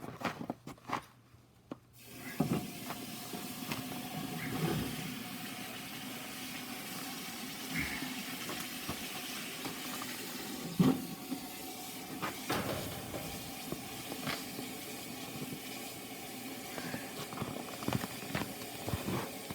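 Red-hot tip of a steel cable-tool drill bit quenched in a bucket of water, the water hissing and bubbling steadily from about two seconds in, with a few knocks. The bit's end is being hardened in the quench.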